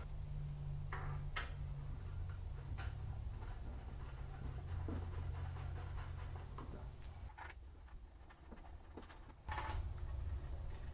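Faint scattered clicks and taps of metal pegs being screwed by hand into a griddle side shelf, over a low steady hum.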